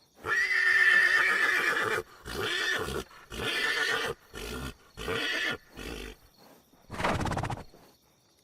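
Horse whinnying: one long high call, then a run of about five shorter calls with pauses between them, and a short noisy burst about seven seconds in.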